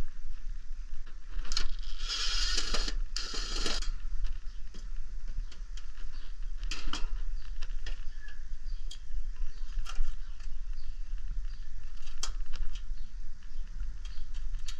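Scattered light clicks and rattles of tools and parts being handled at an air-conditioner condenser, over a steady low hum. A short burst of hiss comes about two seconds in.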